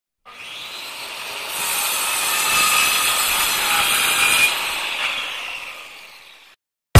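A noisy, hissing sound effect that swells in over the first two seconds and fades away near the end, with no clear rhythm.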